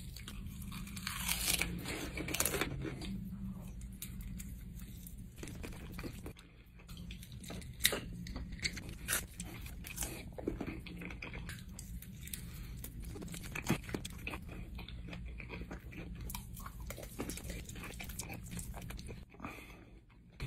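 A person biting and chewing crunchy fried food, a Hot Cheetos-coated mac and cheese bite and chicken wings, close to the microphone: irregular crunches and clicks over a low steady hum.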